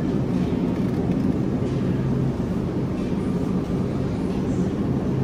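Steady low hum of a supermarket's refrigerated display cases and ventilation, an even drone that does not change.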